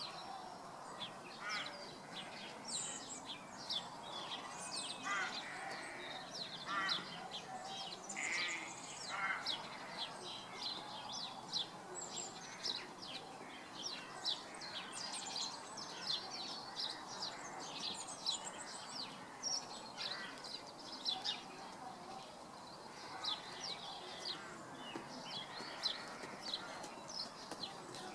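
Small birds chirping: a dense, continuous run of short, high chirps that sweep downward, several a second, with a few lower, pulsing calls between about five and nine seconds in.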